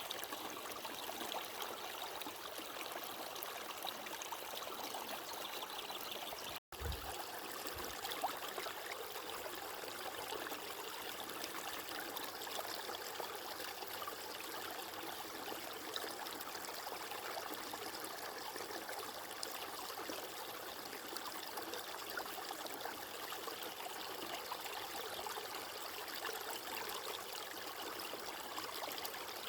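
Running water flowing and trickling steadily, as of a stream. It drops out completely for an instant about seven seconds in, with a brief low thump as it resumes.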